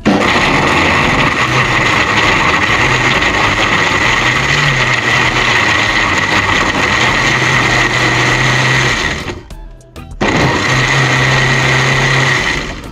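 Electric blender puréeing guava pieces with water, running with a steady high whine over a low hum. It is switched off for about a second roughly two-thirds of the way through, then runs again for a couple of seconds and stops.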